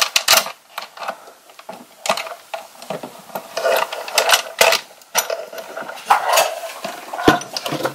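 Insulated electrical wires being pushed through the entry hole of a hardwired Progressive EMS protection unit: irregular scraping, rubbing and clicking as the wires and the unit's case are handled.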